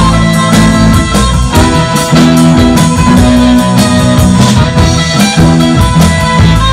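Live garage-surf rock band playing loud: electric guitars over bass and drum kit, with no vocals.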